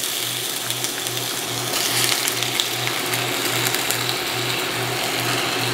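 Thin-sliced raw russet potatoes sizzling in hot oil in a stainless steel skillet, a steady frying hiss. Under it runs a low hum pulsing about three times a second, from the induction cooktop cycling its power.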